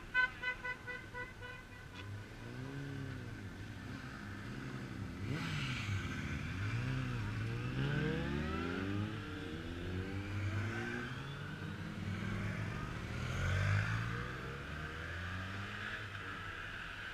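A procession of motorcycles riding past one after another, their engine notes rising and falling as each goes by. For about the first two seconds a horn beeps rapidly, about six beeps a second.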